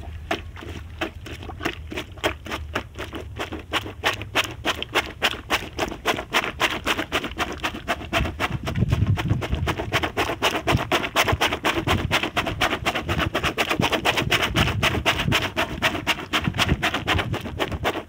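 A homemade plunger washer, an upturned plastic soda bottle on a wooden stick, is pumped up and down in a bucket of soapy laundry. Each stroke is a wet slosh, coming fast and even, about four a second.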